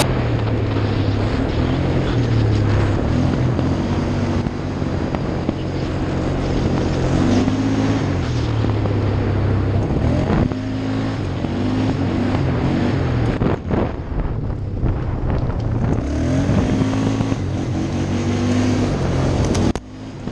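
ATV engine running under hard throttle on a trail ride, its pitch repeatedly climbing and falling as the rider accelerates, shifts and backs off, with wind buffeting the microphone. The sound drops off abruptly near the end.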